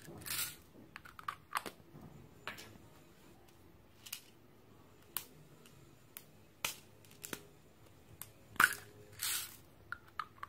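Small plastic toy candy containers handled and opened over a glass bowl: scattered sharp clicks and taps, with a few short rustles, the loudest near the end.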